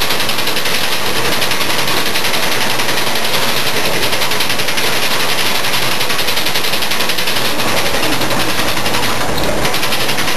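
Rotary monoblock filling and capping machine running, its turret carrying plastic oil bottles past the heads. The result is a loud, steady mechanical clatter with a rapid, even ticking.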